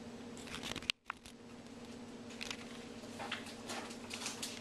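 Faint handling noise: scattered small clicks and rustles over a low steady hum, with the sound cutting out completely for a moment about a second in and again near the end.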